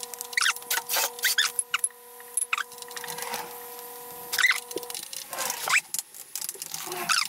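Audio fast-forwarded twenty times: the working sounds and any mumbling are sped up into rapid, high, chattering squeaks and chirps. Under them runs a steady hum of several tones that stops about five seconds in.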